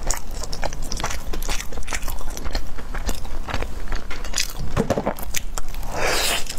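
Close-miked biting and chewing of a large glutinous-rice shumai: a steady run of many small sticky mouth clicks and smacks, a little louder about five and six seconds in.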